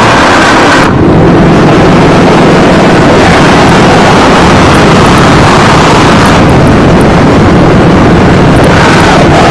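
Harsh noise: a dense, heavily distorted wall of sound at full level, made by voice into a microphone cupped against the mouth. Its tone shifts about a second in and again about six seconds in.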